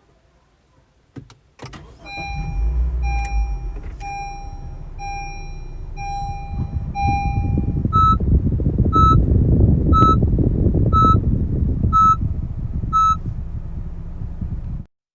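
Car running with its dashboard warning chimes sounding about once a second, six lower chimes followed by six higher ones, over a low engine rumble that starts about two seconds in and grows louder. A couple of clicks come before the rumble.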